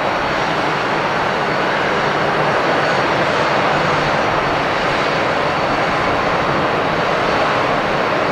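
Boeing 777-300 airliner's twin jet engines at high thrust for takeoff: a steady, loud rush of jet noise that grows slightly louder.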